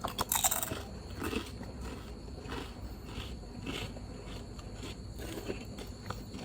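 Close-miked eating sounds of a person eating noodles and seaweed snacks: a loud burst near the start, then soft chewing strokes about once a second.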